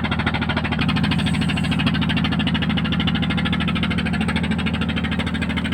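An engine on board a bagan fishing boat running steadily, with a fast, even beat.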